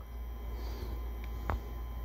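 Quiet room tone with a steady low hum and a few faint clicks of small parts being handled, the clearest about a second and a half in. The parts are the wires and the push-to-talk switch of a CB microphone being soldered.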